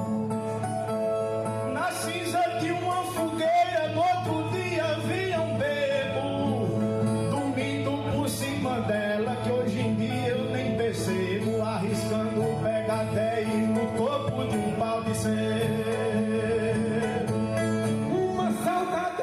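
Music: a moving melody over a steady held low drone, with string accompaniment.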